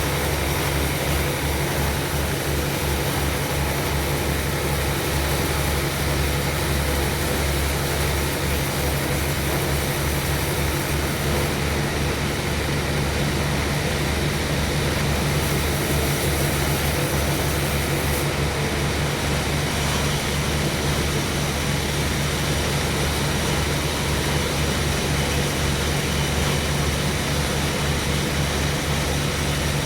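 Sawmill machinery running steadily: a low pulsing drone under an even, noisy hiss, with no pauses or breaks.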